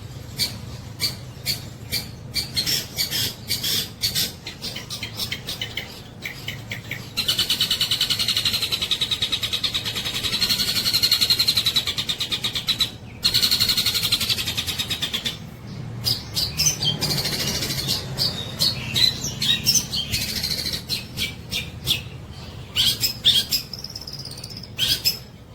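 Long-tailed shrike singing loudly. It gives a run of sharp, quick-fire notes, then long, fast, rattling trills from about 7 to 15 seconds in, then varied chattering phrases.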